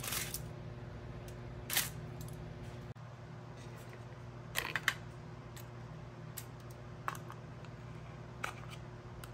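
Kitchen handling sounds: a few short clicks and rustles as bread slices are set on a crinkly foil-lined tray and a knife scoops butter from a tub, over a steady low hum.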